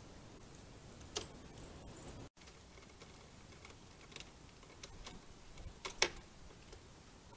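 Faint outdoor hiss with a few scattered sharp clicks and taps, the loudest pair about six seconds in. The sound cuts out for an instant a little after two seconds where two trail-camera clips are joined.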